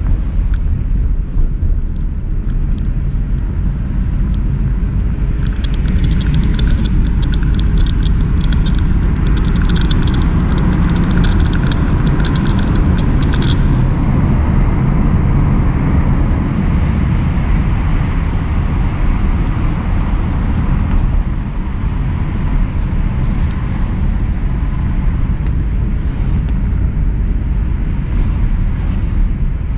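Car cabin noise while driving: the engine and tyres run with a steady low rumble. From about five seconds in to just before halfway, a quick run of sharp crackling ticks sounds over it.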